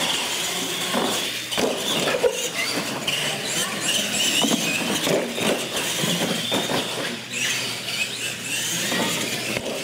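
Electric R/C monster trucks racing on a concrete floor: their motors and gears whine, wavering in pitch with the throttle, over tyre noise and scattered knocks as they run over the ramps.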